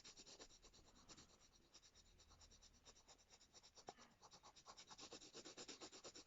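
Faint scratching of a dark brown colouring pencil shading quickly on paper, in rapid back-and-forth strokes several a second, busier in the second half.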